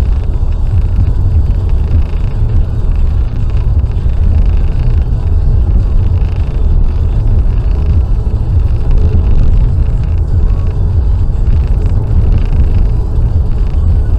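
A car driving at steady speed on a motorway, its engine and tyre noise making a continuous low rumble.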